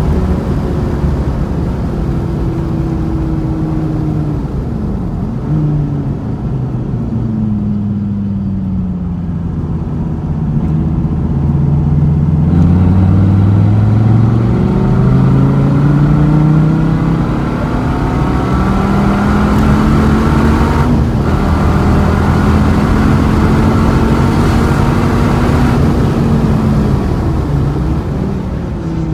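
Dodge Viper's V10 engine pulling hard around a track, heard from inside the car. Its pitch climbs and drops again and again as it accelerates and lifts through the gears, and it is loudest through the middle and later part.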